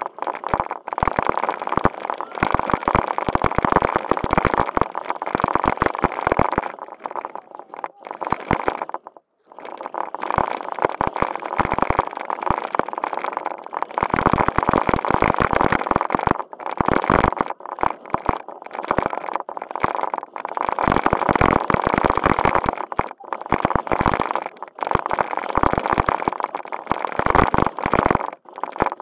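JJRC Q76 1:16 4WD RC stunt car driving over dirt and gravel, its electric drive running in bursts of throttle with a thin steady whine, stopping and starting often, with a full stop about nine seconds in. Heard from a camera riding on the car, wrapped in a plastic bag.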